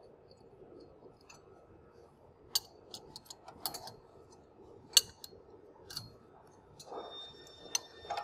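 Hand wrenches clicking and clinking against the steel bolts and fittings of a conveyor belt cleaner's tensioner as the lock bolts are tightened: scattered sharp metal clicks, the loudest about five seconds in.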